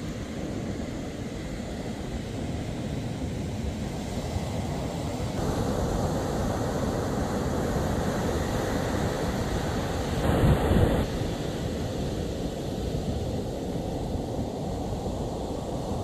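Wind buffeting a phone's microphone over the wash of the sea, growing stronger about five seconds in, with a brief louder gust about ten seconds in.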